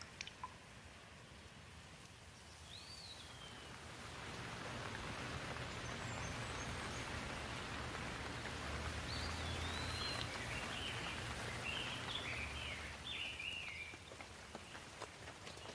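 Steady rain falling, building to a louder spell in the middle and easing off near the end, with a few birds chirping through it.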